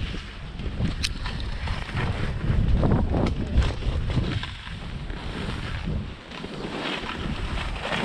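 Wind rushing over the action camera's microphone while skiing, with the skis scraping and hissing over packed snow in surges as they turn. A sharp click about a second in.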